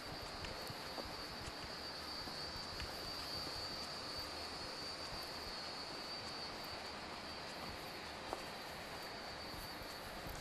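Quiet, empty street ambience: a steady hiss with a thin, steady high-pitched tone over it. Now and then a soft tap of a footstep on stone paving, with one sharper tick about eight seconds in.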